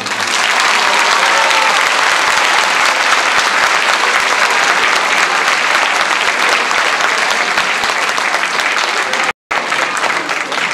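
Audience applauding: dense, steady clapping that breaks off completely for a split second about nine seconds in.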